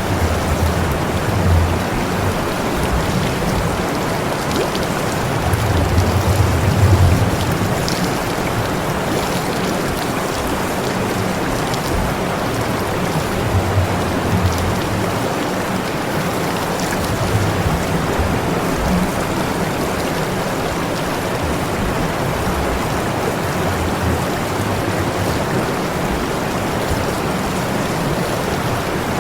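Water spraying steadily: a constant rushing hiss with low rumbles that swell and fade now and then.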